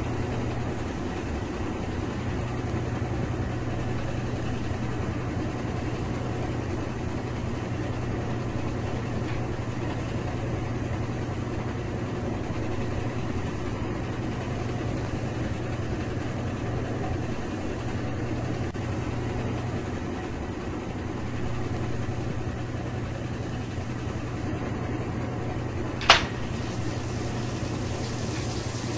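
Two washing machines, an Amana and an Elite Series 4, running together with a steady motor hum and churning noise. A single sharp click comes near the end.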